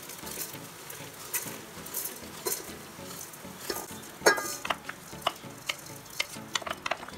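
Raw rice poured from a glass bowl into hot butter-and-oil tempering in a metal pot, the fat sizzling steadily as the grains land. A wooden spoon scrapes the rice out, with many sharp clicks and knocks against the bowl and pot, the loudest about four seconds in.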